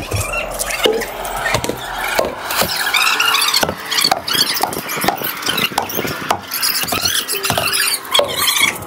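Excited high-pitched shouts and squeals from onlookers over a string of sharp knocks and slaps, while a heavy truck tyre is flipped over on concrete.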